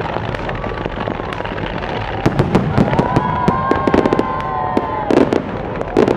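Fireworks going off in a continuous rumble. From about two seconds in, rapid crackling bursts of sharp pops join it.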